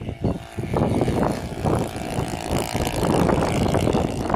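Twin-cylinder four-stroke nitro engine of a large radio-control Piper Cub model plane running in flight, getting louder a little under a second in as it passes, with wind rumbling on the microphone.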